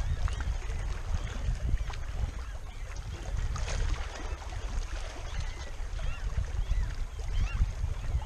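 Wind buffeting the microphone in a steady low rumble, with small waves lapping against a rocky shore. A few faint high chirps come in the second half.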